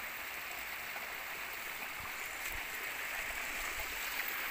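Steady rush of a muddy river in flood, its swollen current running very fast.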